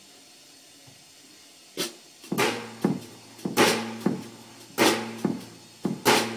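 Domestic cat purring close to the microphone, starting about two seconds in, in a steady rhythm of paired in-and-out pulses about every second and a bit.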